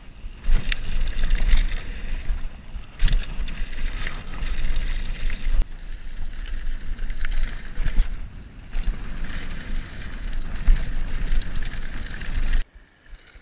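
Mountain bike descending a dirt and gravel trail, heard from a camera on the rider: wind buffeting the microphone as a heavy rumble, tyres crunching on the ground, and knocks and rattles as the bike hits bumps. The sound cuts off suddenly near the end.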